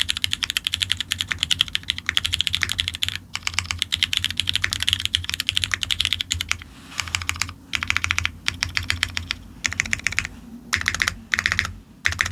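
Fast, steady typing on a custom F1-8X mechanical keyboard with lubed Cherry MX Black linear switches on an aluminum plate, each keystroke a quick clack. The typing breaks off for short pauses a few times and ends in three short bursts.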